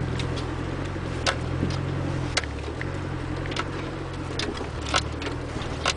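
Land Rover Discovery's Tdi turbodiesel engine running at low revs, heard from inside the cabin as the vehicle crawls along a rutted track, with a handful of sharp knocks and rattles from the body and suspension.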